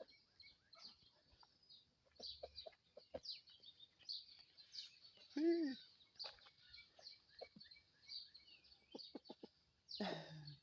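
Chickens clucking, with many quick high chirps throughout and one louder hen call about five and a half seconds in; a brief rustle near the end.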